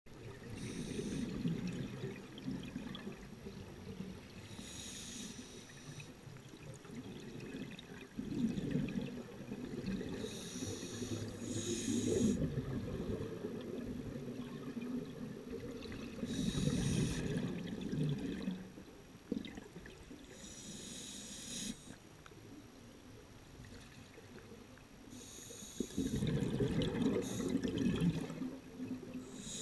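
Scuba diver breathing underwater through a regulator: slow breaths with exhaled bubbles, one breath every five seconds or so.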